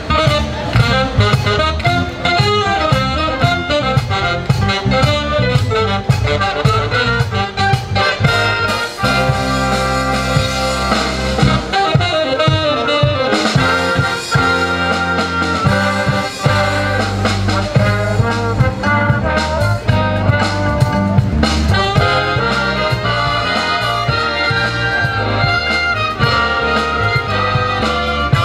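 Brass band of saxophones, trumpets, trombones and flute with a drum kit playing a piece, over a steady drum beat.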